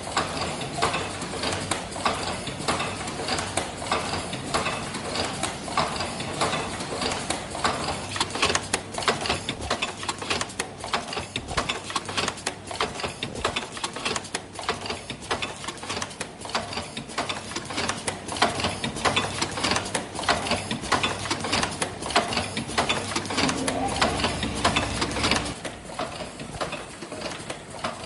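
Automatic disposable medical face-mask production line running, a fast continuous mechanical clatter of many quick clicks from its feeding, folding and welding stations. A steady hum joins for about two seconds near the end.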